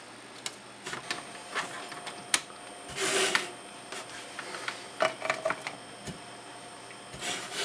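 Scattered small clicks and rustles of hands handling laptop parts and cables, plugging in the display cable connector, with a brief burst of noise about three seconds in.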